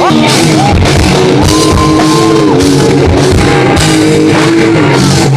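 Rock band playing live: drum kit, bass and guitars, with a lead line holding a bent note for about a second, starting about a second and a half in.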